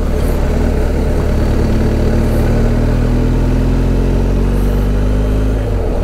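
BMW R1250 GS Adventure boxer-twin motorcycle engine running steadily at low speed, its pitch rising slowly over a few seconds, heard through a helmet microphone.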